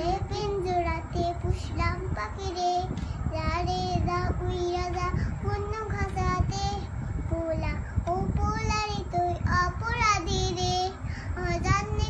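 A young girl singing a Bengali song, holding long notes that waver in pitch, with short breaks between phrases.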